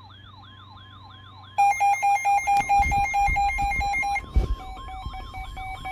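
Layered electronic alert tones: a siren-like rising sweep repeats about three times a second over a steady tone. About a second and a half in, loud fast beeping joins, about four beeps a second, and its pitch drops a little after a sudden low thump near the end.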